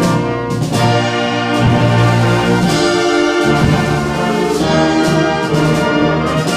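Concert wind band playing a loud passage: sustained brass chords to the fore, with percussion strokes now and then.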